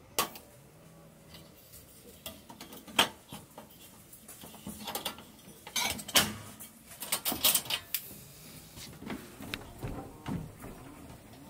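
Irregular knocks, clicks and clinks of hard objects being handled, the loudest about three seconds in and again about six seconds in.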